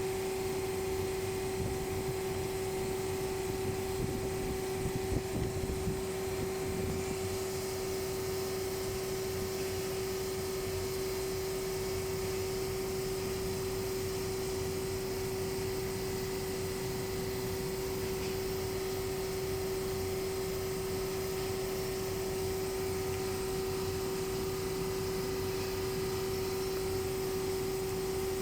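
Steady motor hum with one constant mid-pitched tone over a low rushing noise, a few faint knocks about five seconds in.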